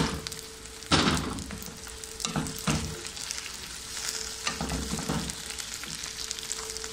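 Chopped okra sizzling in hot oil with onions, stirred with a wooden spatula: a steady frying hiss broken by knocks and scrapes of the spatula against the pan, the loudest about a second in. A faint steady hum lies underneath.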